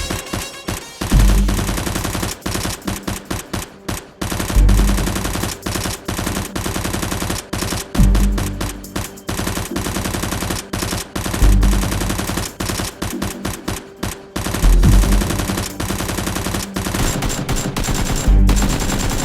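Rapid automatic gunfire sound effects, with dense runs of shots and no let-up. Under them runs action music with a heavy bass hit about every three and a half seconds.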